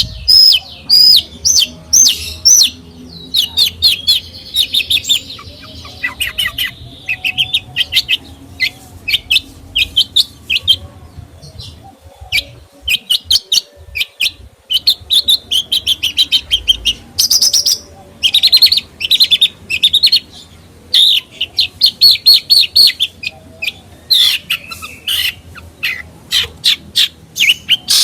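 Songbird singing: rapid runs of short, sharp, high chirps and whistled notes, broken by brief pauses, with a thinner stretch of notes about halfway through.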